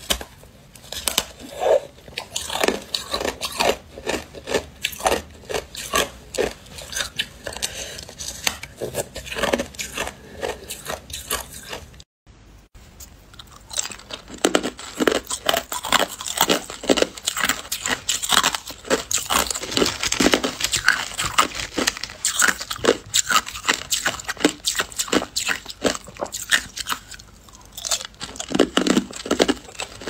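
Hard clear ice being bitten and chewed close to the microphone: many sharp cracks and crunches in quick succession. After a short break about twelve seconds in, the crunching of small ice cubes goes on.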